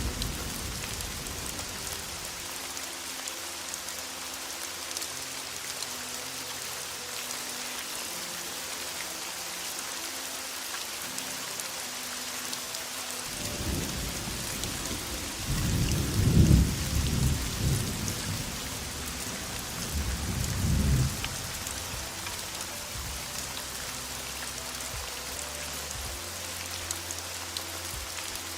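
Heavy rain falling steadily. Thunder rolls in about halfway through, rising to a long low rumble, and a second, shorter rumble follows a few seconds later.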